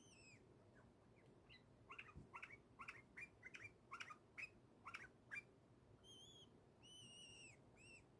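Pet bulbul chirping, faint: first a quick run of short, sharp chirps, then a few longer, arched whistled notes near the end.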